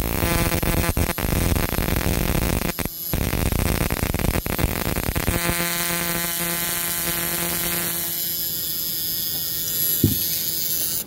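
Battery-powered buzz coil buzzing steadily as its relay contact vibrates, sending a continuous spark to the hit-and-miss engine. It breaks off briefly about three seconds in and stops suddenly at the end.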